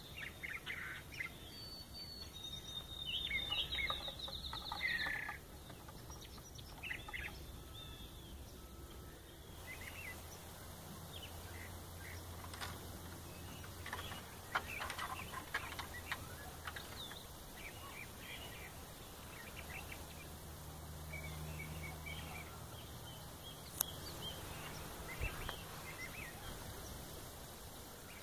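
Outdoor ambience with birds chirping: a cluster of calls in the first few seconds, then scattered chirps over a faint low rumble.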